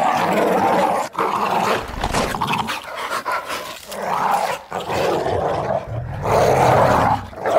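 Monster dog sound effect: a run of harsh growls and snarls, each about a second long, as the creature feeds.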